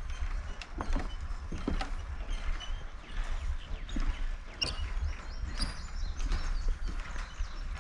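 Footsteps knocking on the wooden planks of a suspension footbridge, roughly one step a second, with a few short high squeaks, over a steady wind rumble on the microphone.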